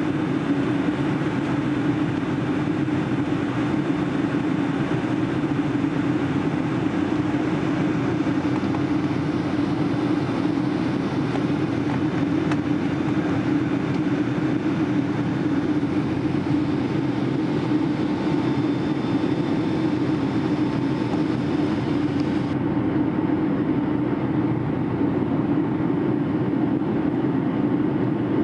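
Steady cabin noise of a Boeing 757 in flight, heard from a window seat over the wing: its Rolls-Royce engines and the airflow give a constant low hum under a hiss. The highest part of the hiss drops away abruptly about two-thirds of the way through.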